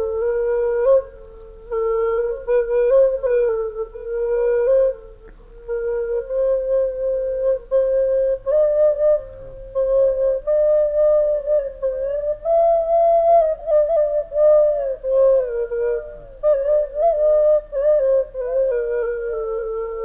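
Music: a single wind instrument playing a melody in short phrases, with brief gaps between them.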